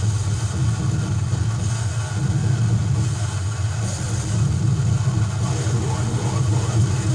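Harsh industrial noise music playing from a 7-inch vinyl record on a turntable: a dense wall of distorted noise over a steady low drone, without a clear beat.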